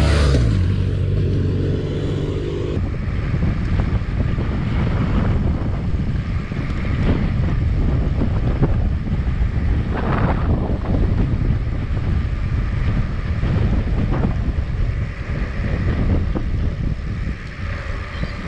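A motorcycle passes at the very start, its engine note dropping as it goes by, with another vehicle's engine fading over the next few seconds. After that, steady wind rumble on the microphone of a camera riding on a moving road bike.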